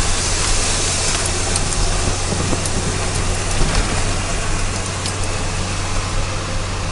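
Isuzu self-loader truck's diesel engine running at steady road speed, heard from inside the cab with tyre and wind noise as an even rushing haze over a constant low hum.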